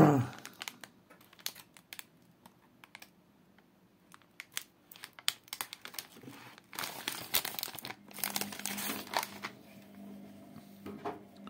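A plastic snack bag crinkling and rustling as a handheld mini bag sealer is clamped and pressed along its edge, with scattered light clicks of the sealer and bag being handled. The rustling is sparse at first and gets busier about two-thirds of the way through.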